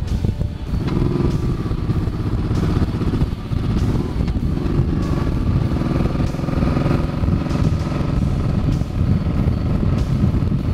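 Cruiser motorcycle's engine running steadily at road speed, heard from the handlebars with wind rush over the microphone.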